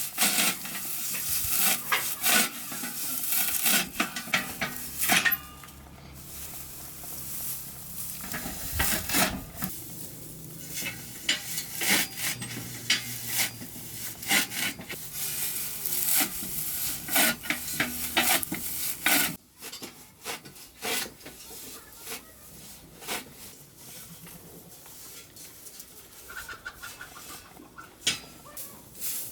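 Repeated knocks, clatter and scraping, busiest in the first two-thirds and thinning out after, with chickens clucking.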